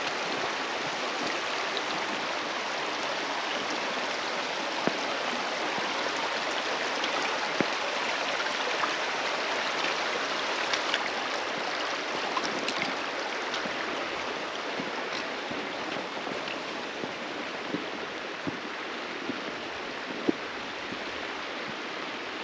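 Steady rush of running water from a stream near the trail, easing a little toward the end, with a few scattered clicks of footsteps on rocks.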